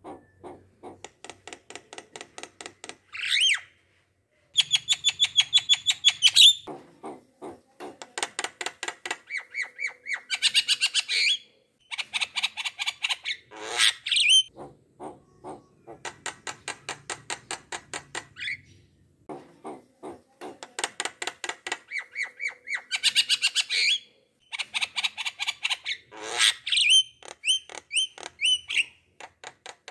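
Bird calling in bursts of fast, evenly repeated short notes, broken by louder squawks and rising whistled notes, with short pauses between the bursts.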